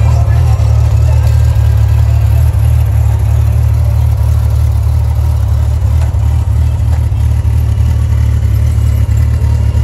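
1995 Honda Gold Wing SE's flat-six engine idling steadily.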